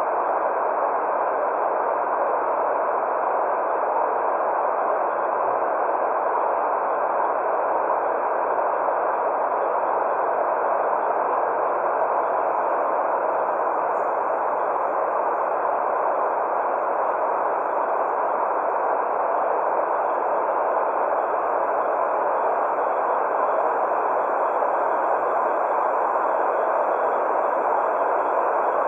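Steady white-noise sleep sound for babies: an unbroken, even hiss concentrated in the middle range and rolled off at the top and bottom, with no change in level.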